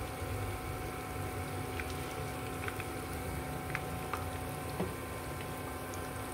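Battered banana pieces deep-frying in a pan of hot oil: a steady bubbling sizzle with a few faint pops scattered through it.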